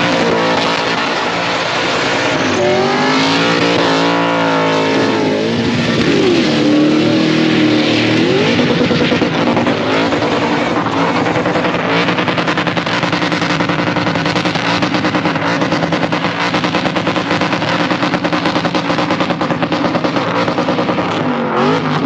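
Supercharged LS1 V8 in a Holden VN Commodore revving hard several times, then held at high revs with a fast, even pulsing in the level through most of the burnout.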